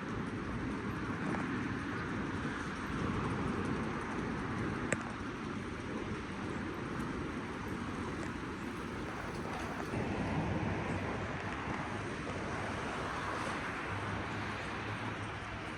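City street traffic noise: a steady wash of passing cars and road hum, with a single sharp click about five seconds in and a low steady hum coming in near the end.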